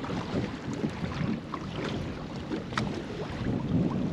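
Wind buffeting the microphone over moving water, with many small clicks and knocks scattered throughout.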